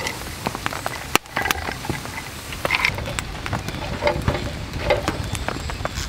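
Campfire crackling, with small irregular pops and snaps and one sharper crack about a second in.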